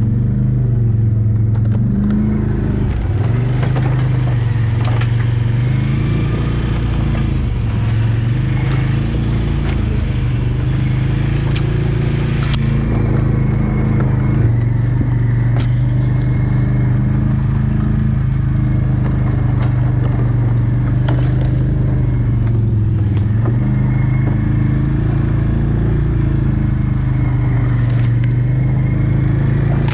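Quad (ATV) engine running under changing throttle, its pitch dropping and rising again several times, with occasional short knocks.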